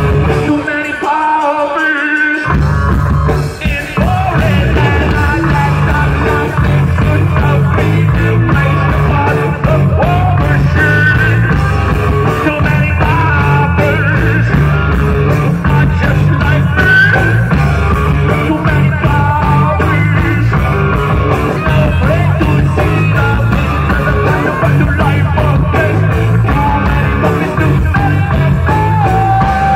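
A rock band playing live, with electric guitar. Heavy bass and drums come in about two and a half seconds in and keep going at a steady loud level.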